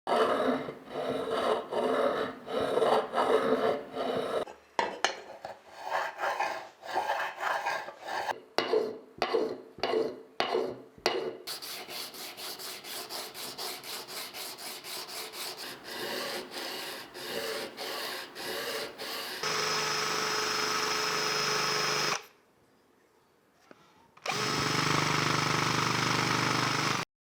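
Hand rubbing or scraping strokes on a workpiece, uneven at first, then quicker and more regular. A power tool then runs steadily twice, with a short quiet gap between the two runs.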